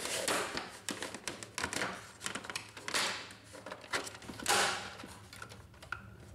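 Plastic side panel of a Brother HL-1110 laser printer being worked onto the chassis by hand: a run of irregular plastic clicks and taps, with a couple of brief scrapes as the panel slides into place.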